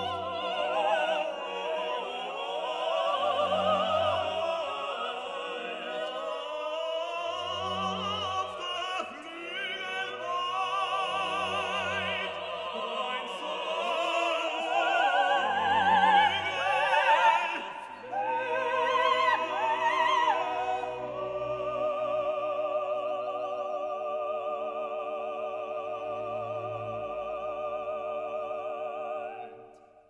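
Operatic singing with wide vibrato over an orchestra, with a low bass note about every four seconds. The second half settles into a long held chord that fades out at the very end.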